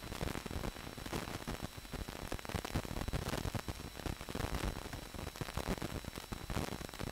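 Surface noise of an old film soundtrack: a steady hiss with dense crackle and pops, and no other clear sound.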